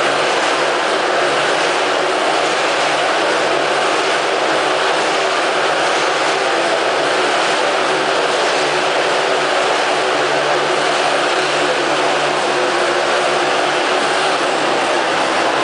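Several motocross bikes riding inside a steel-mesh globe of death, their engines running together in a loud, steady, unbroken din.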